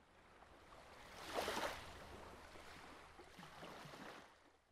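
Rushing-water sound effect for a logo intro, swelling to a splash about a second and a half in, then washing on and fading out near the end.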